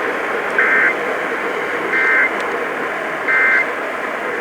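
Emergency Alert System End-of-Message signal: three short, identical bursts of SAME digital data warbling between two tones, about a second and a half apart, marking the close of the alert. They sound over a steady hiss.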